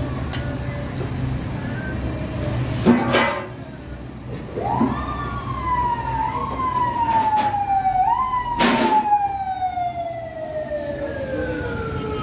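An emergency-vehicle siren wails: its tone rises, slides slowly down, jumps back up twice and sinks lower, over a steady low hum. Two short sharp knocks come at about three seconds and about nine seconds in.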